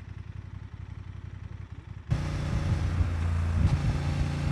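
Honda XL750 Transalp's parallel-twin engine through an aftermarket exhaust, running quietly at first. About two seconds in it becomes suddenly much louder and stays at a steady, strong engine note.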